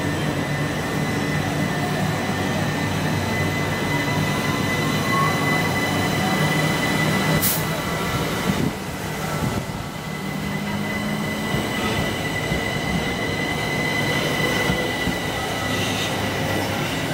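Southern Class 377 Electrostar electric train running past on the rails, a steady mix of wheel and running noise with a low hum and a steady high-pitched whine. There is a single sharp click about seven and a half seconds in.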